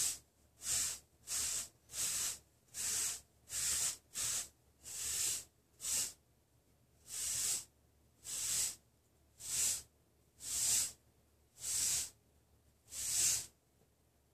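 Bristle wave brush stroked over short, wavy hair: about fifteen short hissing swishes, roughly three every two seconds at first, then after a brief pause about six seconds in, slowing to about one a second. It is a brushing session to lay in 360 waves.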